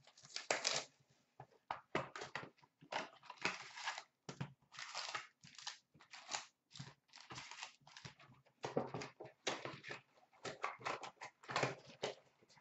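Hands opening a cardboard trading-card box and pulling out the wrapped card packs: irregular rustling, crinkling and scraping of cardboard and pack wrappers.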